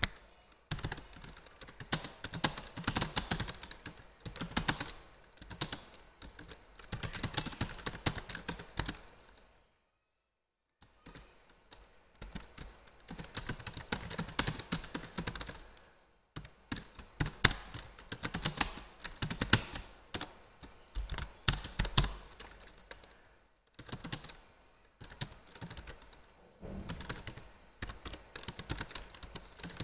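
Typing on a computer keyboard: rapid runs of keystrokes in bursts, broken by short pauses, one of them a second of silence about a third of the way in.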